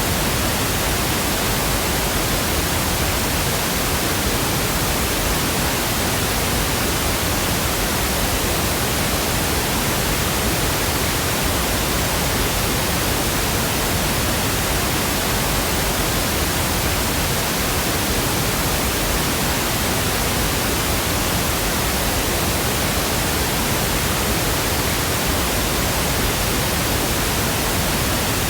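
Steady pink noise: an even, unchanging hiss spread across all pitches, played continuously for sleep.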